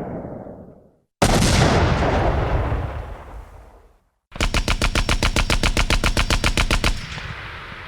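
Gunfire sound effects: the tail of an earlier blast dies away, then a single heavy shot rings out with a long fading echo. About three seconds later a burst of automatic fire follows, roughly ten rounds a second for two and a half seconds, then its echo dies away.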